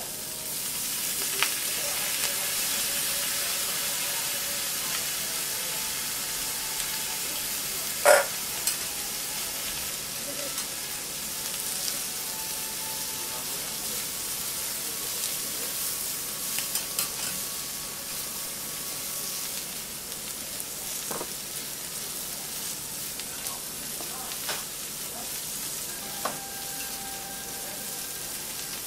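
Yakisoba noodles and cabbage sizzling on a hot steel teppanyaki griddle, with metal spatulas scraping and clicking against the plate as the food is tossed; one loud metallic clank about eight seconds in.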